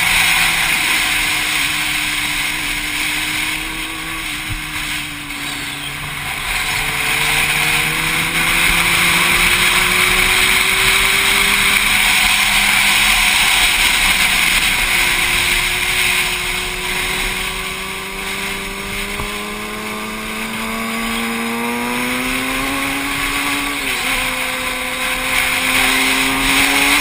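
Motorcycle engine running hard on track, with heavy wind rush over the microphone. The engine note climbs slowly and falls back several times as the bike accelerates and eases off through the corners, with a quick drop and recovery near the end, like a gear change.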